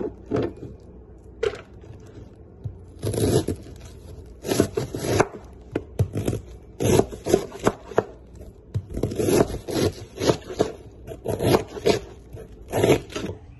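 Kitchen knife slicing a half head of cabbage into thin shreds on a plastic cutting board: crisp cuts with knocks of the blade on the board. The first few strokes are scattered, then from about three seconds in they come in quick runs of several strokes with short pauses between.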